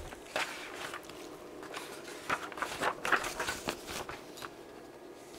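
Printed datasheet pages being handled and turned: a run of irregular paper rustles and crinkles lasting about four seconds.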